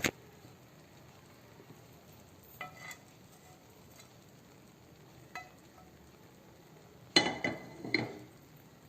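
Metal cookware clinking and knocking, like a spoon or lid against a pot: a sharp knock at the start, a few light ringing clinks about three and five seconds in, and a louder ringing clatter twice near the end.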